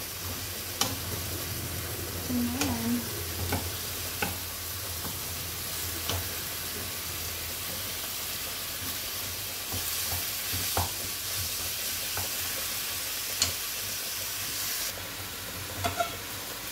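Chicken strips frying in a pan with a steady sizzle while being stirred with a wooden spatula, which scrapes and knocks against the pan now and then. The sizzle drops off near the end.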